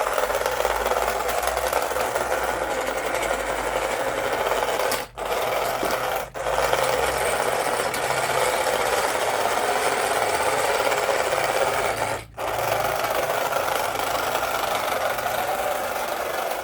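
A small electric motor running with a steady buzzing whir, cutting out briefly three times and starting again.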